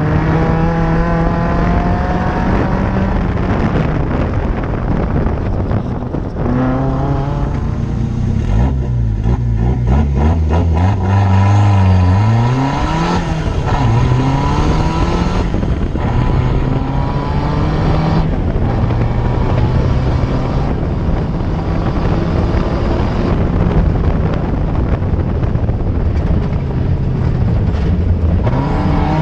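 Off-road race car's engine heard from inside the cockpit, revving up and dropping back again and again through the gears over a constant rumbling noise. About a third of the way through it falls to a low, slow run, then climbs sharply again.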